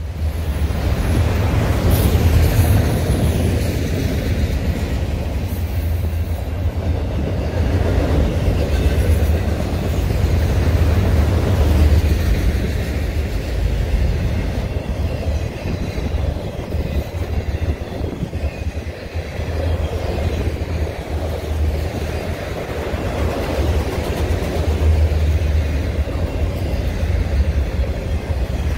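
Freight train of enclosed autorack cars rolling past: a steady, heavy rumble of steel wheels on rail, swelling and easing every few seconds.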